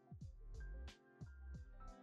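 Faint background music with a steady beat: light ticks about three times a second over low bass notes and held tones.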